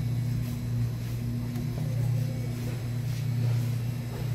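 Steady low hum with a constant tone, from the refrigeration of the glass-door freezer cases.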